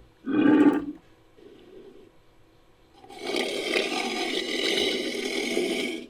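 Designed creature calls for an Edaphosaurus, mixed from camel, bull and walrus recordings. A short pitched grunt of about half a second, a faint softer call, then a long rough, raspy call of about three seconds that cuts off abruptly near the end.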